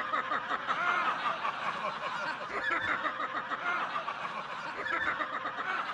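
A crowd laughing and jeering: many voices chuckling and snickering over one another at the same time.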